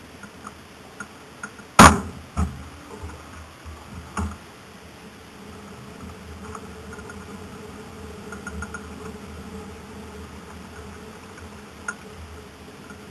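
A sharp knock about two seconds in, then a few lighter knocks and scattered small clicks over a faint steady hum, as the stationary car is handled.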